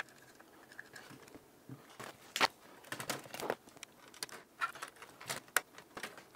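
Scattered small clicks and knocks of a circuit board and its plastic case being handled, with a screwdriver working at the board's screws; the sharpest knock comes about two and a half seconds in.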